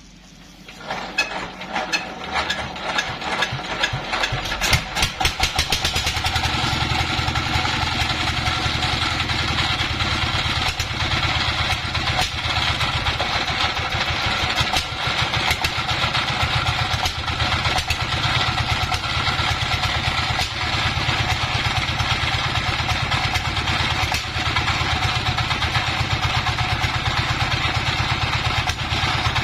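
An engine starts about a second in, fires unevenly and quickens over the next few seconds, then settles into a steady run.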